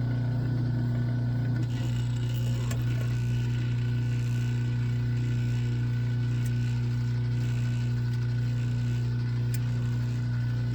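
Motor-driven wire-stripping machine running with a steady low hum while thick 400–500 MCM copper cable is fed through it, with a few faint clicks.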